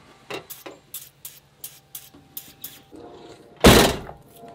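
Pickup truck door latch and handle mechanism clicking, about nine sharp clicks in quick succession, then one loud door thud about three and a half seconds in. The latch is being tried after lubricating and still does not release.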